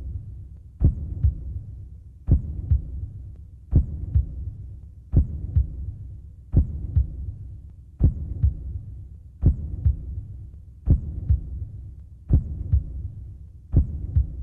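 Slow, heavy heartbeat laid over a low hum: a lub-dub double thump, a strong beat followed closely by a weaker one, repeating steadily about every second and a half, ten times.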